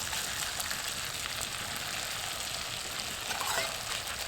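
Potatoes frying in oil in a cast-iron skillet, a steady sizzle, with a faint scrape about three and a half seconds in.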